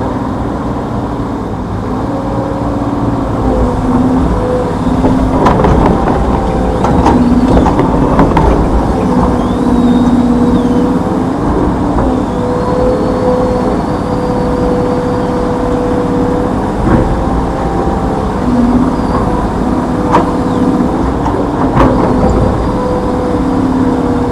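Hitachi Zaxis 210F excavator's four-cylinder turbo diesel running under load, with a whine that steps up and down in pitch as the hydraulics work. Several sharp clanks come through, a cluster a quarter of the way in and a few more in the second half.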